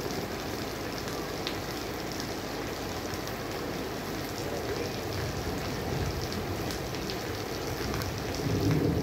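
Steady rushing noise of heavy rain and fast-running floodwater, with brief low rumbles about five seconds in and near the end.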